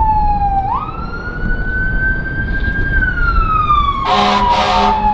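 Emergency vehicle siren wailing, its pitch sliding slowly down, jumping back up and sweeping down again, over the low rumble of wind on the microphone. A short double blast of a horn comes about four seconds in.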